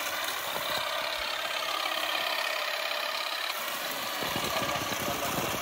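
Machinery running steadily with an even mechanical hum, joined about four seconds in by denser rattling.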